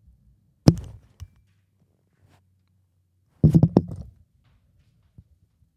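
A sharp click about two-thirds of a second in and a fainter knock just after. Then, about three and a half seconds in, a loud cluster of knocks and thumps: handling noise from objects being moved near the microphone.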